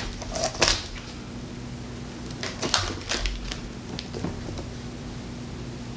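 Small clicks and crackles from a paint marker and its packaging being handled: two short clusters of clicks, then a few faint ticks.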